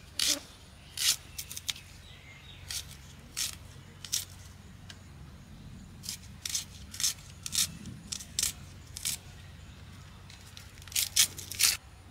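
Small red onions being peeled and cut with a curved iron hand blade: short, crisp scrapes and snips of the blade through papery skin and flesh, coming irregularly, with a quicker, louder run of cuts near the end.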